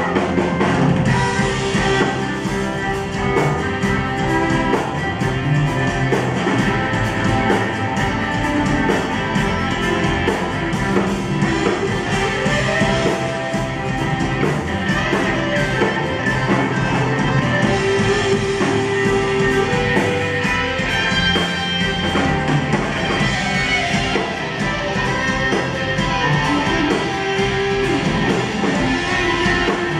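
Live rock band playing an instrumental passage, strummed guitars to the fore over a steady beat, with no singing.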